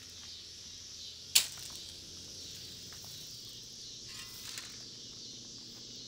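Steady high drone of insects in summer outdoor ambience, with a single sharp knock about a second and a half in.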